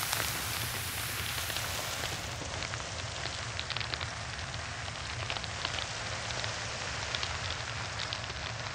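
Hard cheese crackling and crumbling as a knife blade cuts through it: a steady fine crackle with scattered small clicks.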